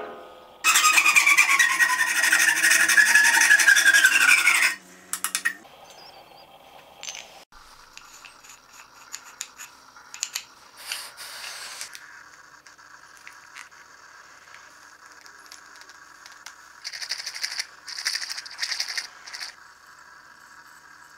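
Bandsaw cutting through the wooden tenon of a turned tool handle: a loud cutting noise with a whine that falls in pitch for about four seconds, then stops abruptly. Quiet handling scrapes and rubs follow, with a run of short scraping strokes near the end as glue is worked onto the tenon with a metal pick.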